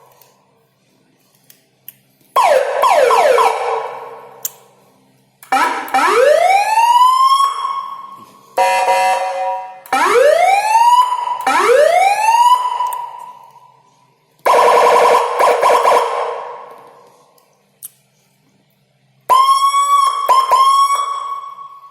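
A 12-tone electronic siren module sounds a series of short bursts, each a different siren tone and each dying away after about a second: fast falling sweeps, rising wind-up whoops, a stepped multi-note tone, a fast warble, and short dipping yelps near the end.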